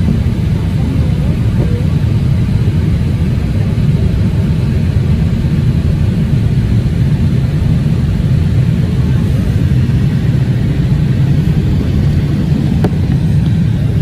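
Steady low rumble inside an airliner cabin during descent: engine and rushing-air noise heard from a window seat, even throughout.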